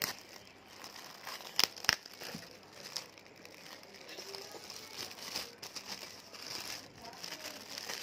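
Shiny plastic gift wrapping crinkling and crackling as it is pulled off a boxed mobile phone, with two sharp snaps close together a little under two seconds in.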